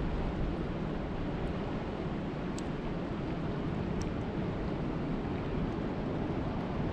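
Steady rushing of lake water, with a low rumble of wind on the microphone; two faint ticks about two and a half and four seconds in.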